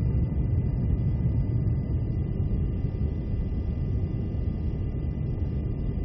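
Steady low drone of a refuelling tanker aircraft in flight: engine and airflow noise heard from inside the aircraft, even and unchanging.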